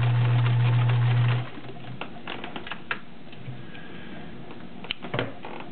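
Kenmore 1357 sewing machine running steadily as it sews a decorative stretch stitch, then stopping about a second and a half in. Scattered clicks and handling noises follow as the fabric is taken out from under the presser foot.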